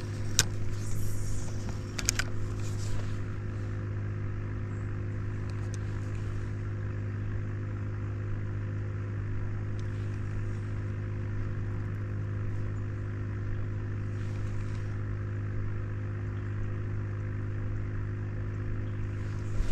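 A steady low motor hum with several fainter steady tones above it, unchanging throughout and stopping abruptly at the very end. A couple of light clicks come in the first three seconds.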